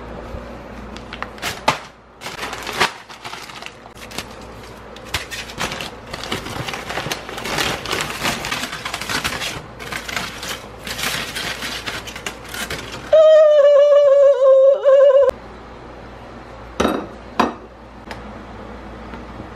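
Paper bag rustling and aluminium foil crinkling as a foil-wrapped sandwich is unwrapped, with scattered clinks and knocks of a plate on the counter. About thirteen seconds in, a loud held note, wavering slightly, lasts about two seconds. A few sharp clicks follow near the end.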